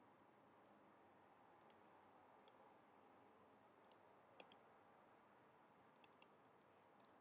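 Faint computer mouse clicks, several scattered single and paired clicks over near-silent room tone.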